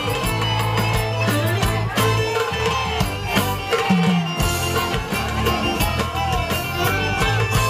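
Live band music with a darbuka (goblet drum) struck in quick strokes over bass and a melody line.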